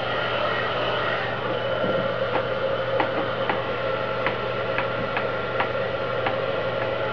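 Handheld electric heat gun running steadily, a motor-and-fan whine with a steady hum, blowing hot air onto vinyl tint film to shrink out its wrinkles over a contoured taillight. From about two seconds in, light ticks come about twice a second over the hum.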